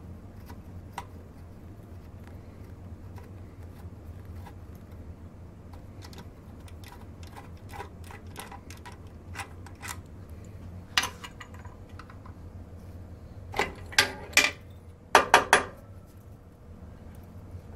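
Small metal parts handled at a steel drill-press table and vise: light clicks and taps, then a few loud metal clanks between about 13 and 16 seconds in as parts and tools are set down. A steady low hum underneath.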